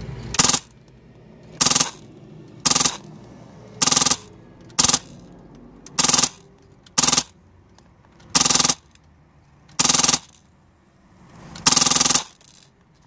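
An A&K M240 Bravo airsoft machine gun, powered by a PolarStar Fusion high-pressure-air engine, fires about ten short full-auto bursts roughly a second apart, from inside a car. The last few bursts are a little longer.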